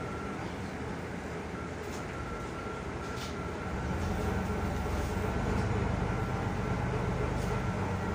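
Cabin noise of a Solaris Urbino 12 IV city bus under way: steady engine and road rumble that grows louder about four seconds in. A thin high beep repeats on and off throughout.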